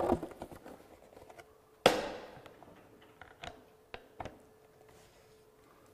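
A rigid calibration target board being fitted onto the metal crossbar of an ADAS target stand: one sharp knock about two seconds in, then a few lighter clicks and taps as it is seated.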